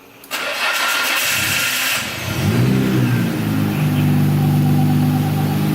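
Nissan Skyline R33 GT-R's RB26DETT twin-turbo straight-six cranking on the starter for about two seconds, then catching, flaring up in revs briefly and settling into a steady idle.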